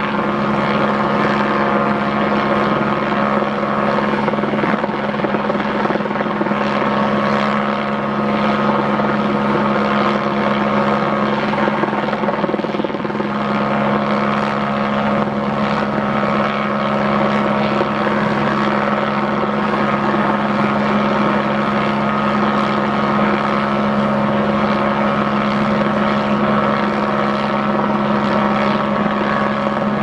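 Helicopter hovering with its rotor and turbine running steadily at a constant pitch.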